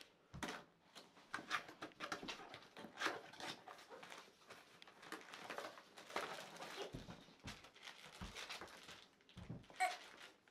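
Cardboard box being opened by hand: irregular quiet rustles, scrapes and small knocks as the flaps are bent open, with crinkling of the plastic-wrapped inflatable inside.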